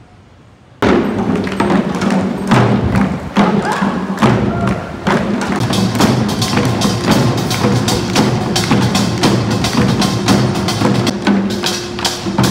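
Background music that starts abruptly about a second in after faint room tone, with a steady percussive beat of sharp knocks over a sustained low bass line.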